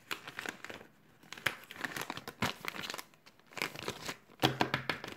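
Plastic zipper bags of sticker sheets crinkling and rustling as they are handled, in a run of short, irregular crackles.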